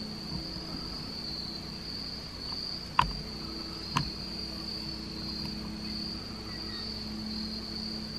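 Steady chorus of crickets, a continuous high trill. Two sharp clicks about a second apart cut in near the middle, the first louder.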